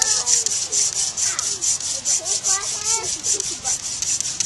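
A box elder spindle being spun by hand in a trumpet vine hearth board: a rapid, even rubbing hiss of wood on wood, about four to five strokes a second, with short wavering squeaks.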